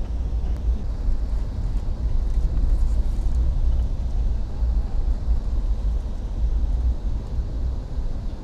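Steady low rumble of a moving vehicle heard from inside.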